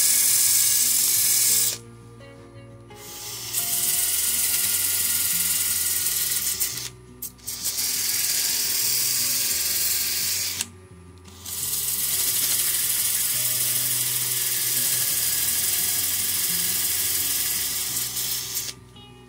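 Power sanding: a sanding pad spun by a small cordless drill pressed against a box elder vase turning on a lathe, giving a loud steady hiss. The hiss breaks off three times for a second or so and stops shortly before the end.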